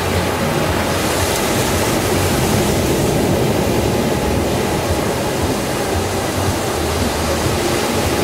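Sea surf breaking and washing up a sandy beach: a steady rushing wash with a low rumble.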